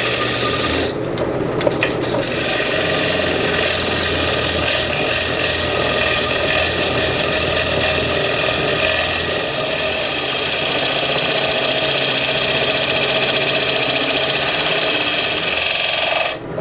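Wood lathe running while a gouge cuts a belt groove into the rim of a spinning wooden pulley, a steady scraping over the machine's running noise. The cutting noise drops out briefly about a second in, then carries on.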